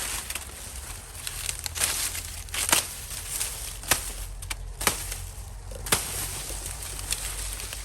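Dry corn husks and leaves rustling and crackling, with irregular sharp snaps, as corn is worked by hand.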